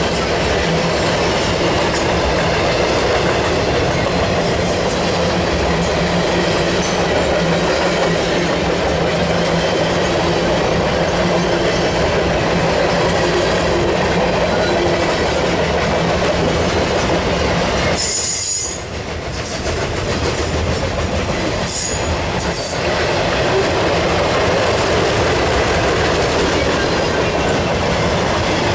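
Freight train of loaded flatcars rolling past close by: a steady rumble and clatter of steel wheels on the rails. The sound dips briefly about eighteen seconds in, with short high-pitched wheel squeals around then and again a few seconds later.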